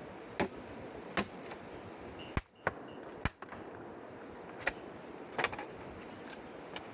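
Irregular sharp snaps and knocks, about a dozen scattered across the stretch, over a steady background hiss: sticks and firewood being broken and handled to start a campfire.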